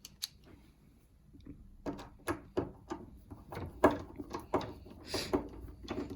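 Phillips screwdriver backing a screw out of a door handle's backplate, metal on metal. A few faint clicks, then from about two seconds in a run of irregular sharp clicks and scrapes as the screw turns.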